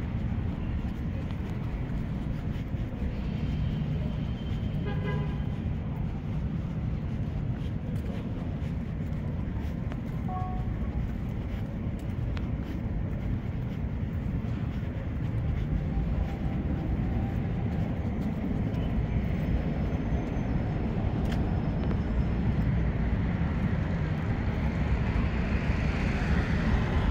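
City street traffic at night: a steady low rumble of passing vehicles, with a short horn toot about five seconds in. The traffic grows louder near the end as a city bus comes close.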